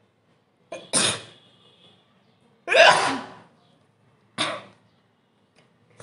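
A woman sneezing three times, sharp bursts about one and a half seconds apart, the second the loudest. The sneezes are deliberately set off by tickling the inside of her nose.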